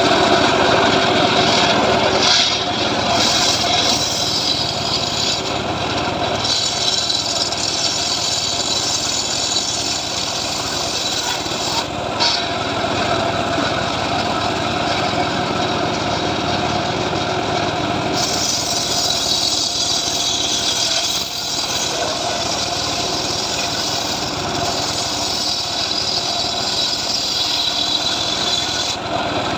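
The small engine of a homemade portable sawmill running steadily, its pitch and loudness wavering a little.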